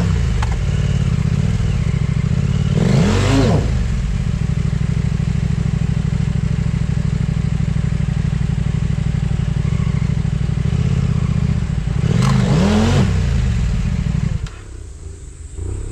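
Off-road motorcycle engine running hard, revved up and down twice as the rider tries to power the bike out of a rut it is stuck in; the engine sound drops away sharply near the end.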